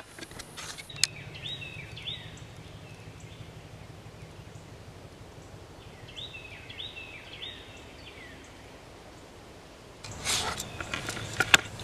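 Short, high, rising-then-falling animal calls: two about a second and a half in, then three more a few seconds later, over a faint steady low hum. Near the end comes close rustling with a couple of sharp knocks.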